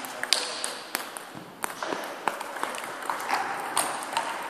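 Table tennis rally: the ping-pong ball clicking sharply off the paddles and the table, a little under two hits a second, ringing in a large hall.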